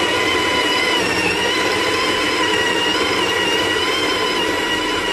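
A steady, machine-like whir: a dense rushing noise with a few high whining tones held above it, unchanging throughout.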